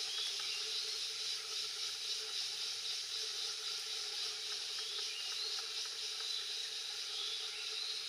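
Steady high-pitched hiss of forest background sound, without change and with no clear bird call standing out.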